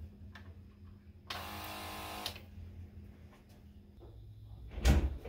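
A buzzing burst of about a second, typical of the small electric pump motor in a Ryobi 18V cordless electrostatic sprayer run briefly. A loud dull thump comes near the end.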